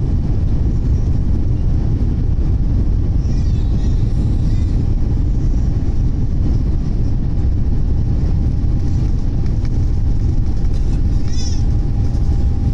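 Steady, loud low rumble heard inside the economy cabin of an Airbus A350-900 on the runway at takeoff.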